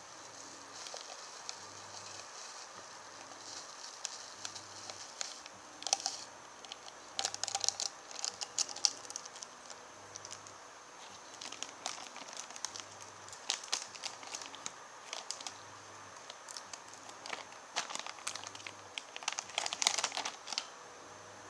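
Thin plastic drink-powder sachets and kit packaging crinkling and crackling in irregular bursts as they are handled and tapped out over a plastic flask.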